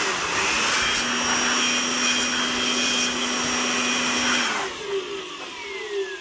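Electric air blower running steadily, blowing cleaning petrol off a graphics card to dry it. About four and a half seconds in it is switched off and spins down with a falling whine.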